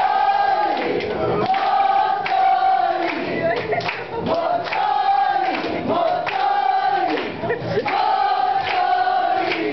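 Man singing loudly into a microphone in long held notes with short breaks between them, with the voices of a crowd joining in.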